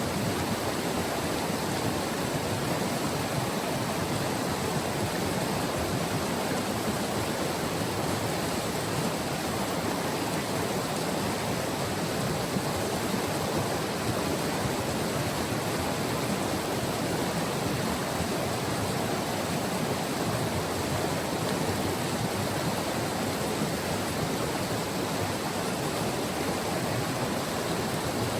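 White River flowing: a steady, even rush of moving water with no breaks or changes.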